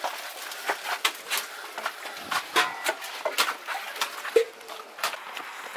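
Irregular taps and knocks of runners' footsteps and plastic cups being handled at a drinks table.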